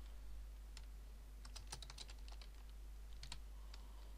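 Faint computer keyboard typing: irregular keystrokes in small clusters, a few at a time.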